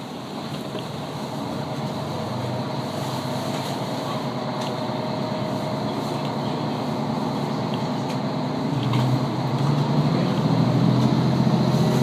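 Diesel railcar pulling away and accelerating, heard from inside the passenger cabin. A steady rumble grows louder, and a low engine drone rises from about three-quarters of the way through.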